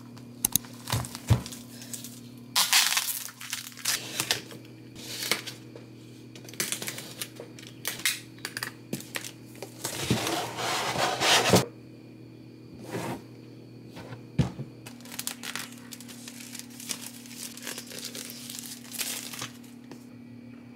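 Unboxing a realme Book laptop by hand: cardboard packaging being handled, opened and slid out, with crinkling plastic wrap and scattered taps and knocks. A longer tearing, scraping rush comes about ten seconds in, over a steady low hum.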